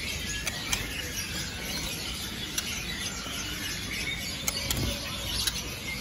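Caged songbirds giving short, sharp, high chirps here and there over the steady background noise of a bird market.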